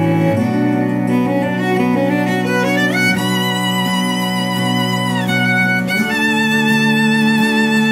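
Instrumental background music: a slow melody in long held notes with vibrato over steady lower sustained notes, moving to a higher note about three seconds in and changing again about six seconds in.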